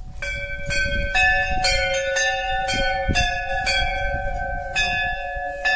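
Hindu temple bells rung over and over, about two strikes a second, each stroke ringing on into the next so the tones overlap.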